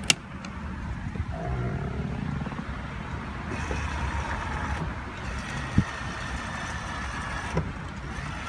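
A click from the power mirror switch being pressed, then the 1997 Toyota Camry's passenger power mirror motor whirring faintly in a few short runs as the newly fitted mirror glass tilts.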